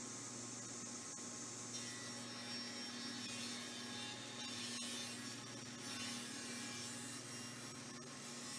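Power saw ripping a moulded strip of wood off the edge of a board, heard faintly over a steady motor hum; the cutting noise gets rougher about two seconds in.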